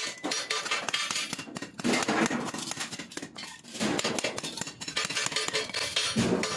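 Thin metal kulfi mold tubes clinking and tapping against a tapered steel rod and each other as they are worked by hand: rapid, irregular small metallic knocks, easing off briefly a little past halfway.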